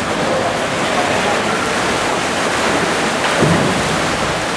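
Steady splashing and churning of water from canoe polo kayaks and paddles in an indoor swimming pool hall.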